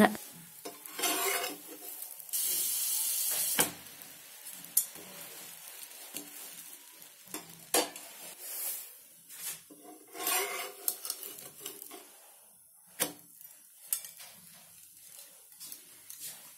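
Steel spatula scraping and tapping on a dosa tawa while a buttered sandwich toasts, with sharp clicks at intervals. About two seconds in, a steady burst of sizzling lasts over a second.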